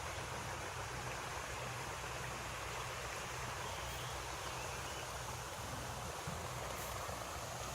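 Steady rushing outdoor ambience with a low, steady hum underneath and no distinct events.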